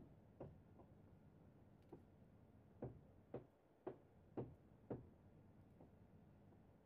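Near silence: faint room tone with scattered soft ticks as hands twist hair at the side of the head, including a quick run of about five ticks, roughly two a second, near the middle.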